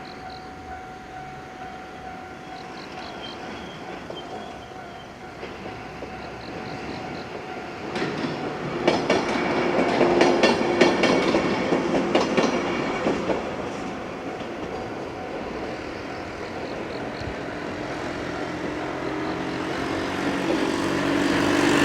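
JR West 103 series electric train passing over a level crossing: it comes in about eight seconds in, its wheels clattering over the rail joints at their loudest a few seconds later, then fading away. A level-crossing alarm rings faintly.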